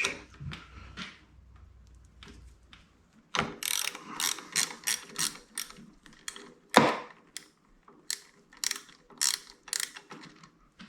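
Ratchet wrench with a 1/2 inch socket clicking as it backs off a motorcycle mirror's acorn nut. The clicks come in quick repeated strokes, about two or three a second, starting about three seconds in.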